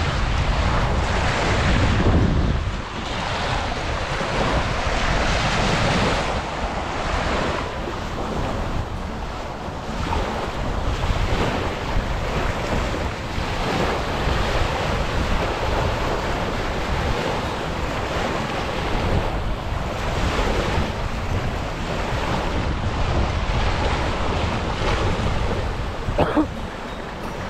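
Baltic Sea surf washing onto a sandy beach in strong wind, swelling and fading every few seconds, with wind buffeting the microphone.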